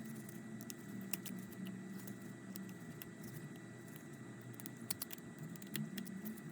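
Faint, scattered light clicks and ticks of small repair tools working on an iPhone X's tiny screws and metal brackets.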